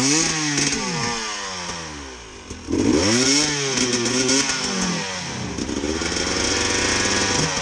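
Dirt bike engine revved hard as the stuck bike struggles up the steep bank of a deep ditch. The revs climb at the start and sag away, jump again with a sudden burst about three seconds in, rise and fall, then hold high and steady near the end.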